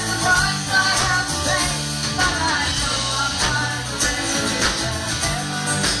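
Live country band playing a song: a woman singing over strummed acoustic guitars, electric bass and a steady drum beat, amplified through a PA.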